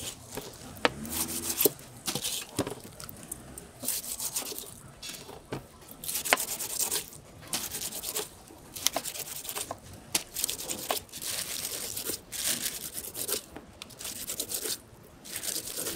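A large cleaver shaving the rind off a whole pineapple in repeated downward strokes, about one a second. Each stroke is a rasping scrape through the skin, with sharp taps as the blade meets the plastic cutting board.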